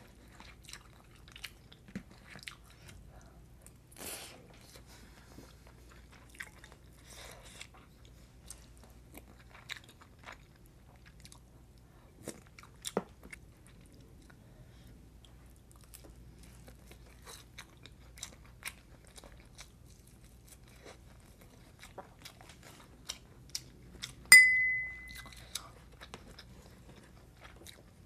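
A person chewing a meal of rice and kimchi stew, with scattered light clicks of a metal spoon against ceramic bowls. Near the end, one loud clink rings briefly on a clear tone.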